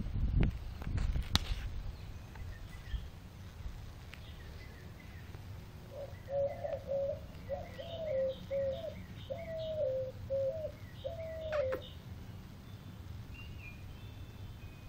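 A few knocks and rustles in the first second or so, then, from about six seconds in, a bird calls a run of short low notes for about six seconds, with fainter high chirps from other birds around it.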